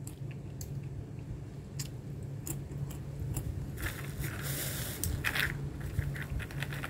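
Scattered small crackles and clicks of walnuts being handled, with a bag of walnuts rustling for about a second and a half, starting about four seconds in, over a steady low hum.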